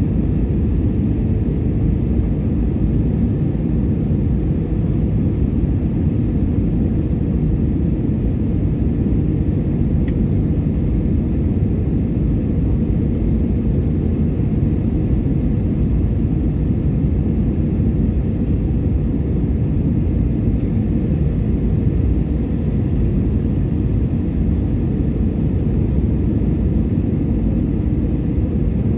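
Airbus A320 airliner on its landing approach: a steady, low rumble of engines and airflow that stays even throughout.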